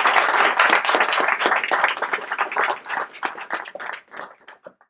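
Audience applauding. The clapping thins after about three seconds to a few scattered claps, then stops.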